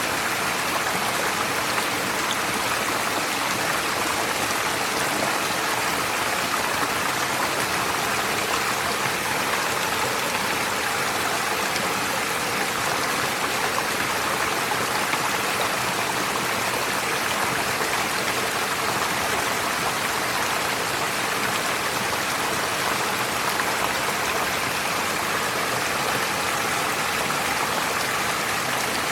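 Forest stream flowing over stones: a steady rush of running water with no breaks or changes.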